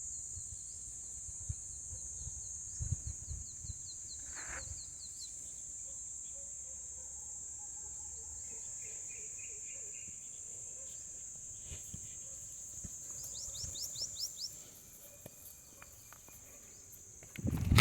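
Insects buzzing steadily at a high pitch, with runs of quick repeated chirps over the top; the buzz stops about three seconds before the end. Low rumble and a few soft knocks sit underneath.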